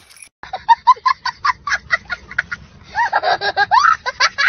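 A young child laughing hard: about half a second in, a fast run of short high-pitched giggles, several a second, breaking into longer whooping laughs from about three seconds in.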